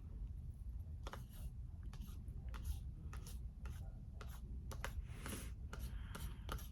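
Close-miked eating sounds from brownie, strawberries and Greek yogurt: a run of small sharp clicks and rasping scrapes over a low steady hum.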